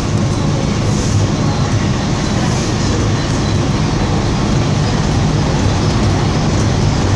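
Toronto subway train running through a tunnel, heard from inside the car: a steady, loud low rumble of wheels on rails and running gear.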